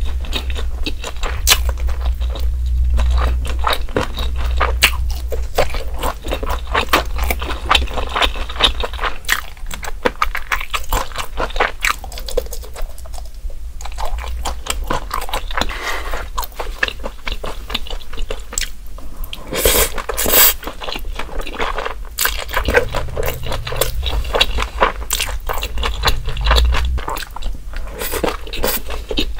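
Close-miked chewing of a mouthful of grilled eel over rice with diced fried egg, a dense run of small wet mouth clicks and smacks, with a louder cluster of them about two-thirds of the way through.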